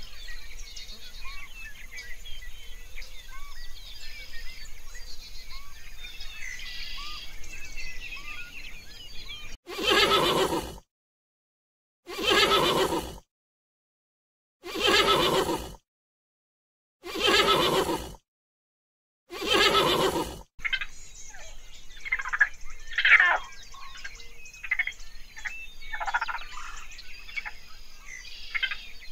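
Horse whinnying five times, each call about a second long and cut off into dead silence between calls. Faint high chirps come before the whinnies and busier high chirping calls after them.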